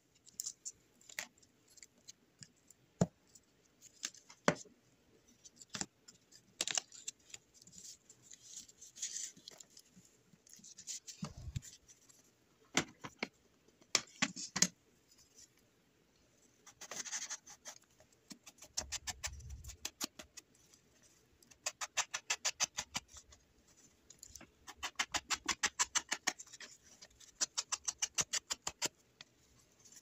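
Paper-crafting handling sounds: paper sliding and rustling, with scattered sharp clicks. In the second half come quick runs of light taps, about six a second, as paper is dabbed on a black stamp ink pad.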